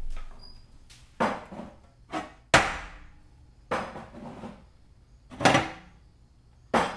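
A series of about seven irregular knocks and clatters, each dying away quickly, like hard objects being set down or handled in a small room.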